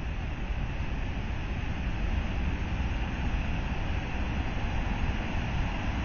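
Waterfall plunging into a pool: a steady rush of falling water with a deep rumble underneath.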